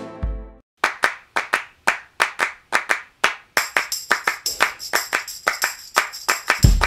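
Background music in a breakdown section: after a short drop-out, a steady run of handclaps at about three a second. High percussion joins about halfway through, and the bass beat comes back in near the end.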